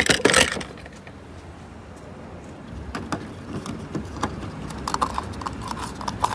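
Plastic-and-metal knocks as a fuel pump nozzle is pulled out of a car's filler neck, then a few clicks and a quick run of small ratcheting clicks as the fuel cap is screwed back on.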